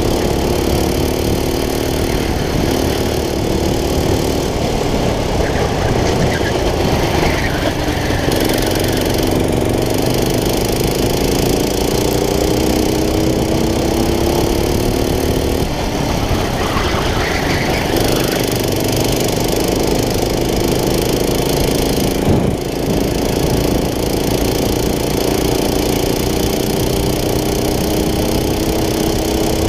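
Racing kart engine heard from on board at speed, its pitch climbing slowly along each straight and dropping away as the throttle is lifted for corners, about 4 and 16 seconds in. A single sharp knock about 22 seconds in.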